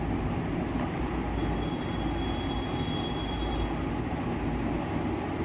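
Steady rumbling, rushing machine noise that holds at one level throughout, with a faint thin high whine for a couple of seconds in the middle.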